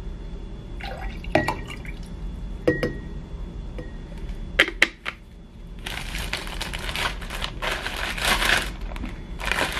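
Plastic breast pump parts clicking and knocking against a glass mason jar while breast milk is poured from the pump bottle into the jar, with two sharp knocks a little before halfway. Then, for roughly the last four seconds, a plastic Ziploc storage bag crinkles steadily as the pump parts are handled in it.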